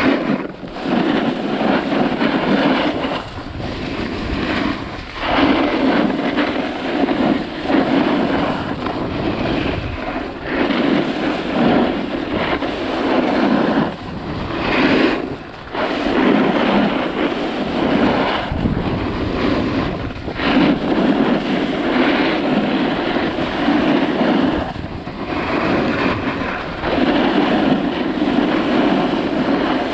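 Edges carving and scraping across groomed snow on a run down a ski slope, swelling and easing with each turn every few seconds, mixed with wind buffeting the microphone.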